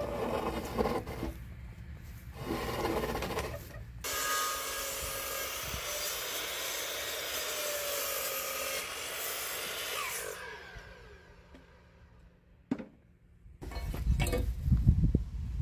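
Electric mitre saw cutting through a 12×12 cm pine/spruce timber beam, starting suddenly and running for about six seconds, then the blade spinning down with a falling whine. Before the cut there are wooden knocks and scrapes as the beam is shifted on the saw table, and near the end close rustling handling noise.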